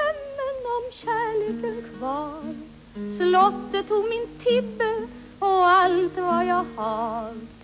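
A woman singing a song with a wide vibrato over instrumental accompaniment.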